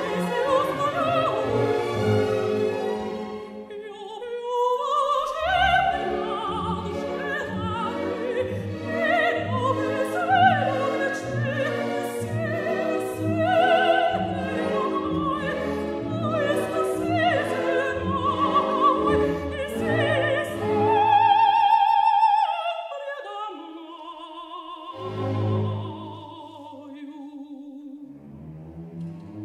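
Operatic soprano singing with a symphony orchestra, her notes wavering with vibrato. About three quarters of the way through she holds one long high note, after which the orchestra carries on more quietly.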